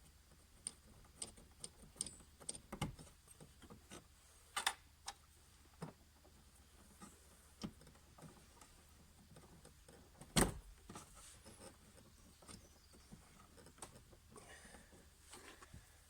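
Scattered small clicks and taps of hand work on fuel-line connectors and their plastic retaining clips, with one sharper knock about ten seconds in.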